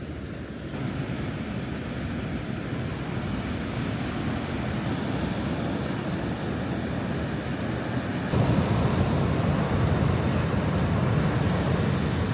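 Sea surf washing on the shore with coastal wind, a steady rushing noise. It shifts abruptly about a second in, around five seconds in and about eight seconds in, and is louder after the last change.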